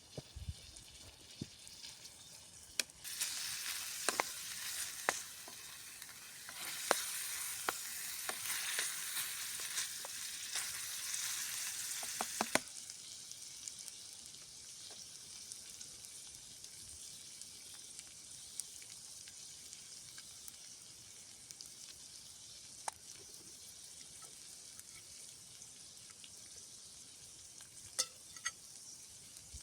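Chicken livers sizzling in a dish over a wood fire, with scattered sharp clicks. The sizzle swells louder for several seconds, then drops suddenly to a quieter, steady sizzle.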